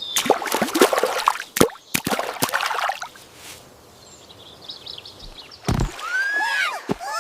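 Cartoon sound effects: a burst of rustling noise with a few sharp clicks, then, near the end, a little bird's quick rising-and-falling chirps.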